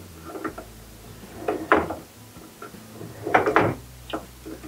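Metal clunks and scrapes from a Land Rover front axle's hub and brake drum being turned by hand on the bench. Two louder clusters of knocks come about one and a half and three and a half seconds in, with lighter clicks between.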